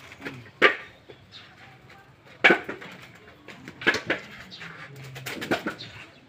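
Husked coconuts knocking as they are tossed by hand into woven baskets and onto the pile: four or five sharp knocks a second or so apart.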